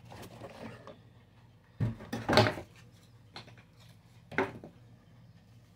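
Knocks and scrapes from handling the boxed wall clock and its packaging. There is a cluster about two seconds in and a single knock about four and a half seconds in.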